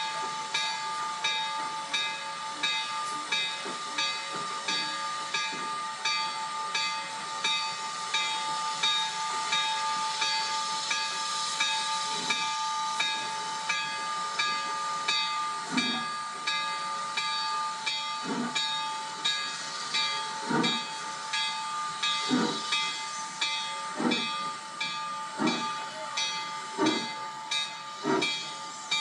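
Steam locomotive hissing steadily, with steady high tones and a fast, even beat. From about halfway, exhaust chuffs begin, slow at first and gradually quickening as the locomotive gets under way.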